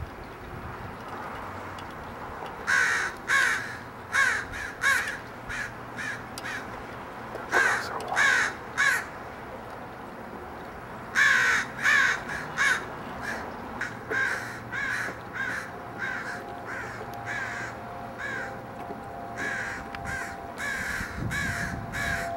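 American crows cawing in repeated runs of short caws, beginning about three seconds in and coming and going in bouts: alarm calls aimed at the coyotes passing below.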